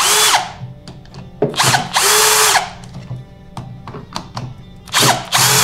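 Bosch Professional 18 V cordless drill/driver driving screws into a plywood vise jaw in three short runs, the middle one the longest, the motor pitch climbing at each start and dropping as it stops. Background music plays underneath.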